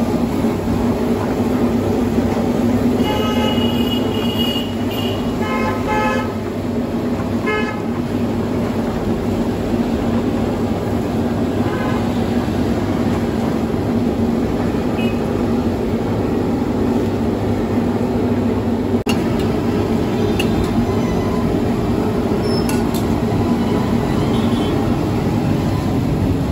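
A steady low mechanical drone, with vehicle horns honking a few times about three to eight seconds in: one longer honk, then shorter ones.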